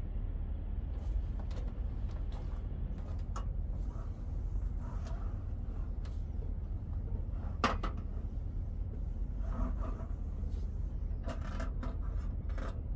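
Paper towel rubbing over an aluminium slatted camp table and a metal camping stove, with light knocks and clicks as the stove is handled and one sharper click about two-thirds of the way in, over a steady low hum.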